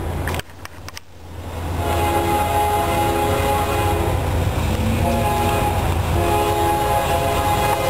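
Air horn of an approaching CSX diesel freight locomotive sounding a chord in long blasts with short breaks, the warning for a grade crossing, over a steady low rumble of the train. The sound drops away briefly about half a second in and the horn is back by about two seconds in.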